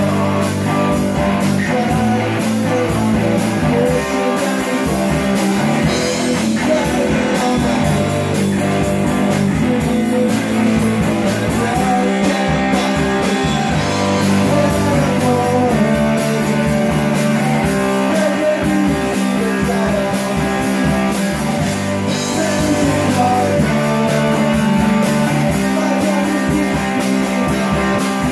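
Rock band playing live: a semi-hollow electric guitar, an electric bass and a drum kit, with a male singer.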